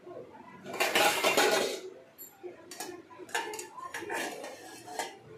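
Metal clatter from a stainless steel pot and its steel plate lid on a gas stove: a loud rattling burst about a second in, then several light metallic clinks.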